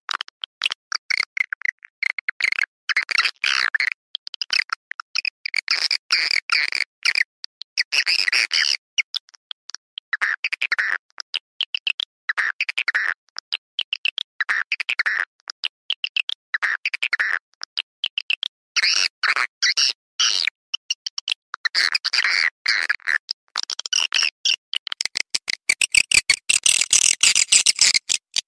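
Edible-nest swiftlet calling sound (suara panggil), a lure recording of rapid high twittering chirps and clicks in dense bursts broken by short silent gaps. It is played to attract swiftlets into a bird house. Near the end the chirping gets denser and hissier.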